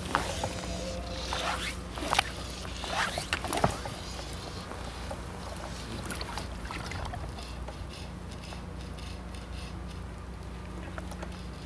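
Fly rod and line swishing through the air during casting, several quick swishes in the first few seconds, over a steady low hum.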